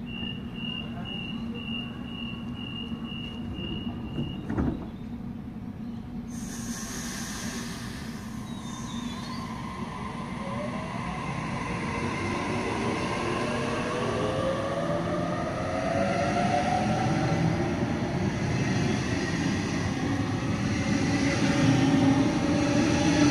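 Waratah electric suburban train departing. A door-closing warning beeps steadily for a few seconds and ends with a knock as the doors shut. Then comes a hiss, and the traction motors set up a whine of several tones that rise in pitch and grow louder as the train pulls away.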